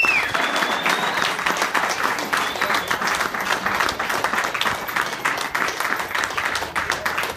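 Wedding guests applauding, the clapping gradually thinning out.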